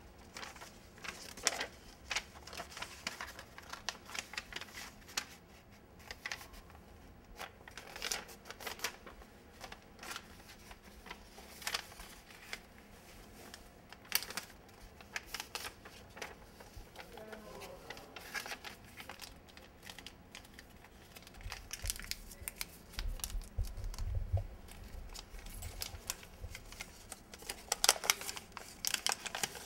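Sheet of paper being folded by hand into an origami crane: irregular crisp crinkles and sharp snaps as folds are made and pressed, with a low rumble about three-quarters of the way in.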